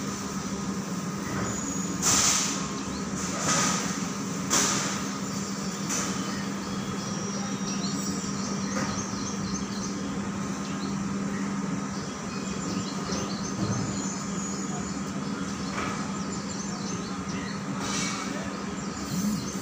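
Hydraulic scissor lift raising its platform under the load of a mini truck, the power pack's pump and motor running with a steady hum that weakens about halfway through. Several brief rushing bursts come in the first six seconds and once more near the end.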